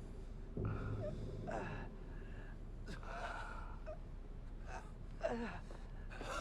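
A person gasping and breathing hard a few times, in short separate breaths.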